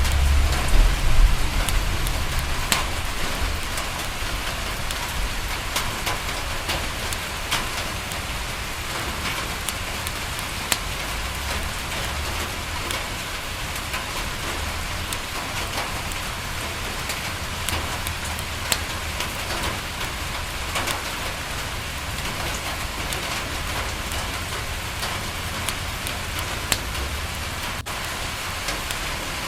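Steady rain pattering on a window pane, with sharp crackles from a wood fire scattered through it. A low rumble underneath is strongest in the first couple of seconds and then eases off.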